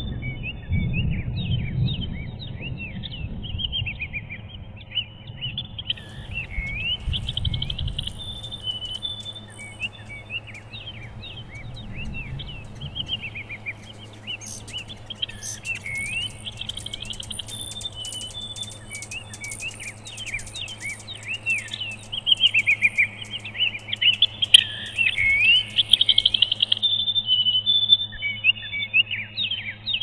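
Songbirds chirping and twittering, many quick high sweeping calls overlapping without pause, with a low rumble under the first several seconds.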